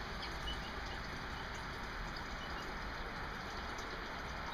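Small garden water fountain running with a steady splashing hiss, with a few faint high bird chirps over it.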